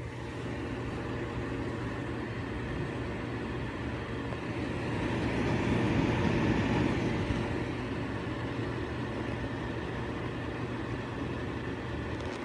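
Ceiling-mounted centrifugal exhaust fan running steadily: a whoosh of moving air over a low hum. It grows louder in the middle and then eases off again.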